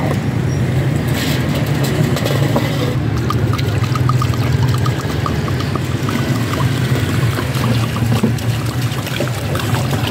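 Water pouring from a plastic bottle into a steel drum of curd mixture for salty lassi, trickling and splashing into the liquid. A steady low engine-like hum runs under it and is the loudest part.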